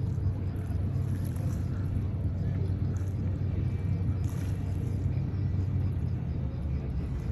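A boat's motor running steadily with a low rumble.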